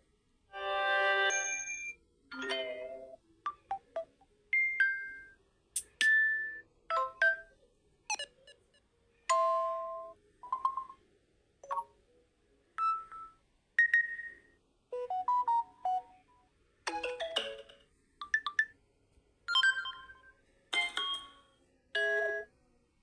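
A Samsung Galaxy A02 phone speaker playing about twenty short, bright chime-like alert tones one after another, each a different melody of a second or less, separated by brief pauses.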